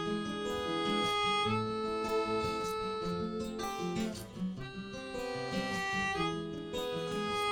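Instrumental song introduction: acoustic guitar strumming chords under a held, sustained melody line.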